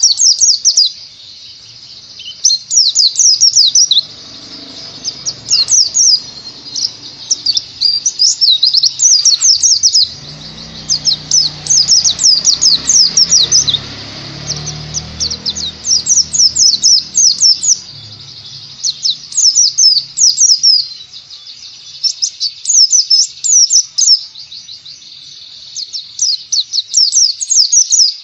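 White-eye (pleci) singing: phrases of rapid, high chirping notes a second or two long, repeated over and over with short pauses between them.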